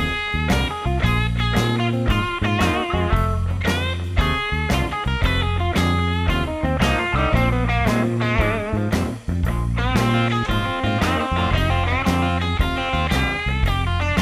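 Background music: blues-rock with guitar over a steady beat.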